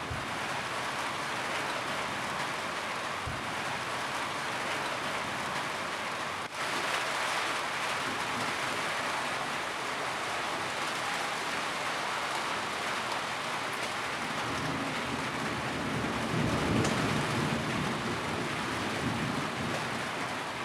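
Steady rain falling on a roof, an even hiss of drops that dips for an instant about six seconds in. A low rumble, like distant thunder, swells under it in the last third.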